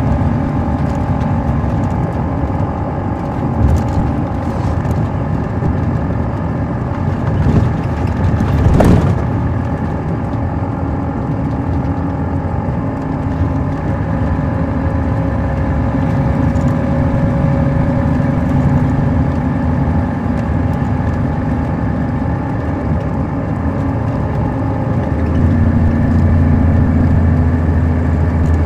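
Caterpillar C13 ACERT diesel engine of a 2006 MCI D4500CL coach running steadily, with a single loud knock about nine seconds in. The low engine note grows deeper and louder near the end.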